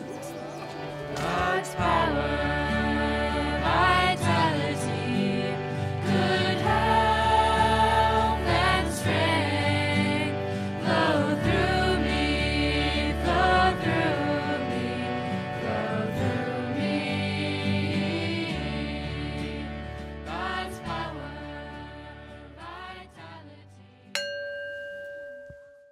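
Background song with singing voices over sustained bass notes, fading out over the last several seconds. Near the end a single bell-like chime rings and dies away.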